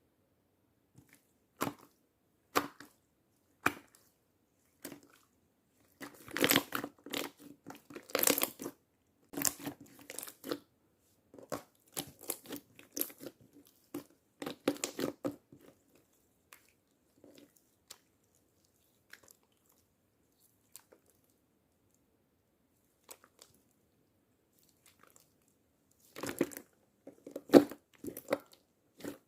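Slime being played with by hand: short sticky clicks, crackles and squishes as it is pressed and pulled. The sounds come in clusters, with a long quieter stretch in the middle holding only a few faint ticks.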